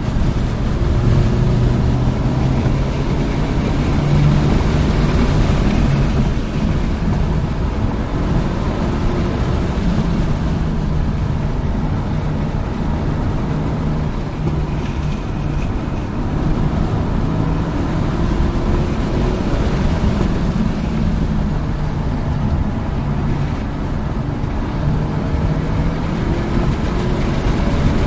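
Hyundai Elantra N's 2.0-litre turbocharged four-cylinder engine lapping at speed, its pitch climbing again and again as it accelerates, with steady wind and road noise underneath.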